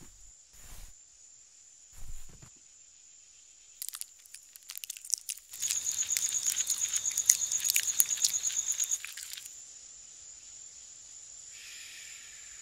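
A caterpillar chewing a leaf: a run of rapid, crisp crunching bites starts about four seconds in and gets loud for a few seconds before it stops. Under it there is a steady high chirring of crickets.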